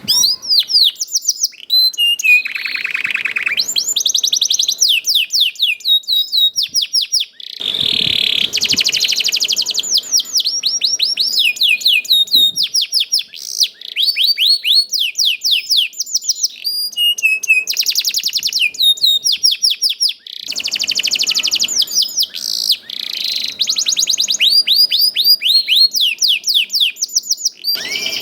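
Domestic canary singing a fast, continuous song of rapid trills and runs of quick repeated chirps.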